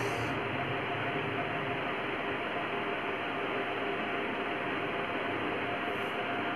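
Steady hiss of room background noise with a faint steady hum, unchanging throughout and with no distinct knocks or strokes.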